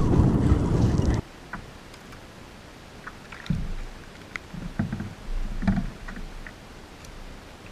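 Wind and water noise on the microphone cuts off abruptly about a second in. Then comes a quieter stretch with a few soft thumps and small clicks as a freshly jigged live bait fish is swung aboard the kayak and handled.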